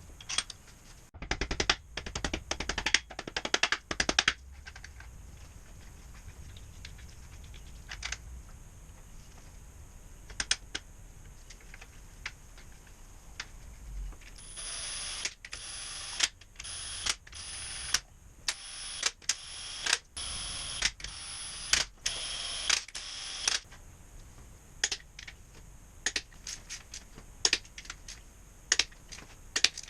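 Sharp clicks and clinks of hand tools and metal engine parts being handled, a quick cluster near the start and then scattered single ones. About halfway through a steady hiss runs for several seconds, with clicks about once a second over it.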